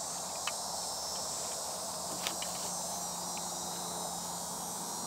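Steady high chirring of insects, with a few faint light ticks.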